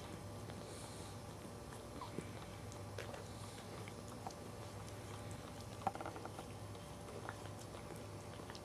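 Cairn terrier mother licking her newborn puppy: faint wet licking and mouth-smacking noises with scattered small clicks, the sharpest about six seconds in, over a low steady hum.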